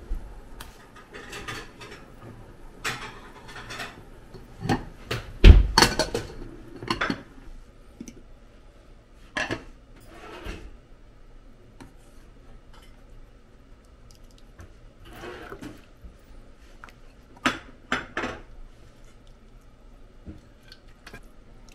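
Dishes and cutlery being handled in a kitchen: scattered clinks and clatters with pauses between them, and one heavier knock about five and a half seconds in.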